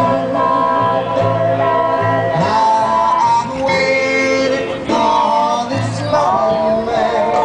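Background music: a country-style song with guitar and a singing voice.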